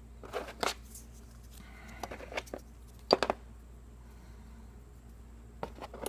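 Scattered small clicks and taps as plastic spring clamps and the camera plate are handled on a workbench. The loudest pair of clicks comes about three seconds in.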